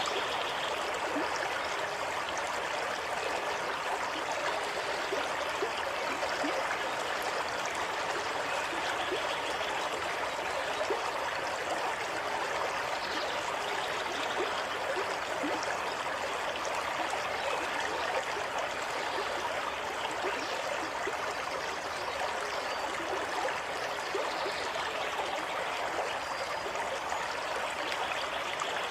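Running water flowing steadily over stones, a stream with a continuous trickling, bubbling rush and small splashes.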